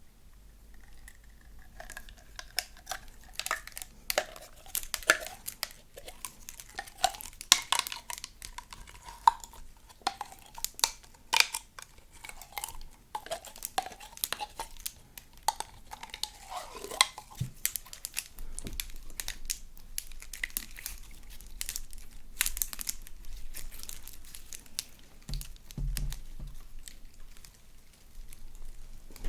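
Slime being kneaded and stretched by hand, with sticky popping clicks and crackles. Under the clicks, a thin wavering tone fades out about halfway through.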